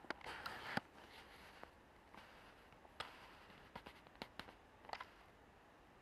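Near silence broken by a brief faint rustle in the first second and several light clicks scattered through the middle.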